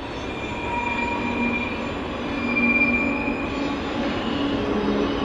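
Canadian Pacific freight train rolling past, a steady rumble with thin, high, wavering squeal tones from its steel wheels coming and going over it.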